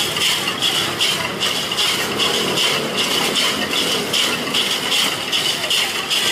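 Glass soda bottles spinning in a slushie machine's ice bath, clinking and rattling against the ice and each other in a steady rhythmic clatter of a few pulses a second.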